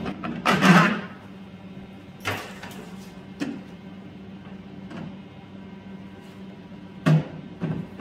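Handling noise of a homemade plastic fuse box being fitted over threaded studs on a metal bulkhead: a loud knock and scrape about half a second in, then scattered light knocks and clicks as the box and a wired fuse block are moved about, over a faint steady hum.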